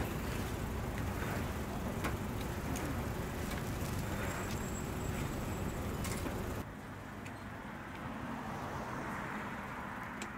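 Steady rumbling background noise with scattered light clicks and clinks from metal egg-bread baking moulds being handled in the oven. The background drops suddenly about two-thirds of the way through.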